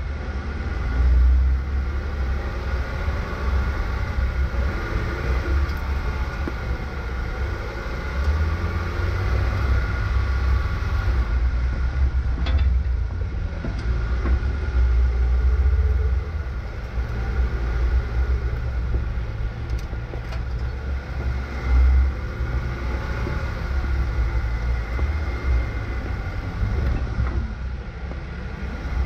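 Jeep Wrangler driving slowly over a dirt trail, its engine running with a low rumble and a steady whine.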